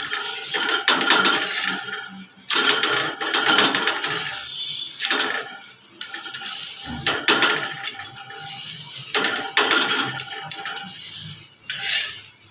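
Metal spatula scraping and knocking on an iron tawa as a roti is pressed and turned, in a string of short, irregular scrapes and clatters.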